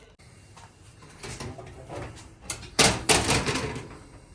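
A few knocks and rattles of something being handled, with the loudest cluster of clatter about three seconds in.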